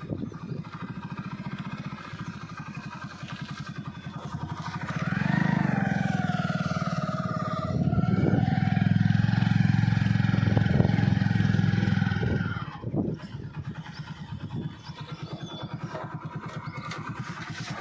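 Motorcycle engine running as the bike is ridden along. It picks up and runs louder from about five seconds in, eases off near thirteen seconds, and then runs quietly at low speed.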